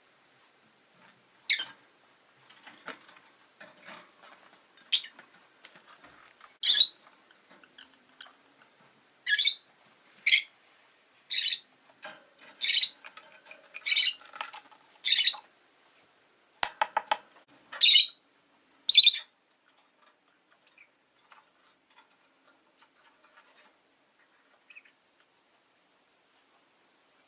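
Rosy-faced lovebirds giving short, sharp chirps, about a dozen over the first twenty seconds, then only faint clicks.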